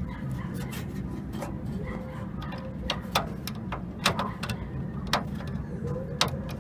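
Irregular small clicks and taps of front-panel connectors and wires being handled and pushed onto a desktop computer's motherboard headers, over a steady low hum.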